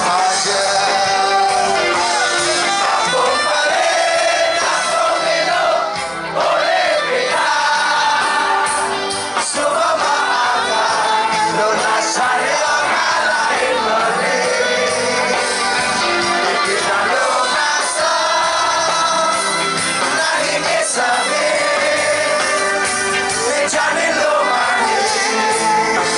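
Live reggae band playing loudly with a lead singer, heard from within the audience, with the crowd singing along and shouting.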